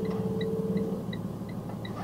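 Box truck engine running with a steady low hum heard in the cab, with a light ticking about three times a second.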